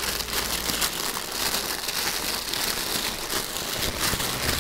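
Thin tissue wrapping paper crinkling and rustling as hands press on it and fold it open in a cardboard box: a steady run of fine crackles.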